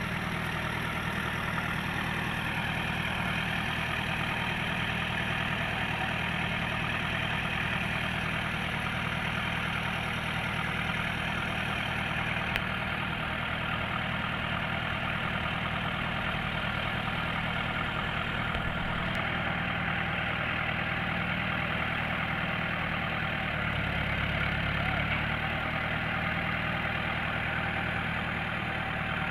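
Farm tractor's diesel engine idling steadily, briefly a little louder late on.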